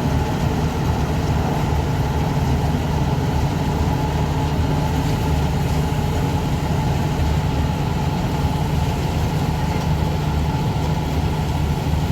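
John Deere 5310 combine harvester's diesel engine and machinery running steadily at an even, unchanging pitch.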